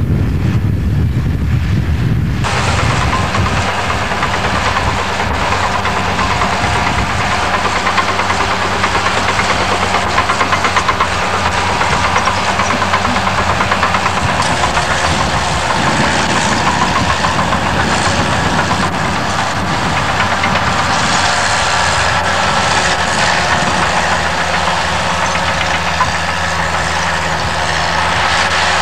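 Bulldozer's diesel engine running steadily under load, with a dense rattling clatter over it. About two seconds in the sound abruptly fills out with more high-pitched clatter.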